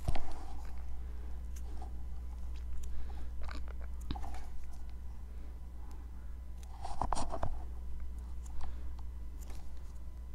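Faint close-up handling noise: small clicks and light scrapes of fingers and an orangewood stick working over freshly polished gel nails, with a slightly louder cluster about seven seconds in, over a steady low hum.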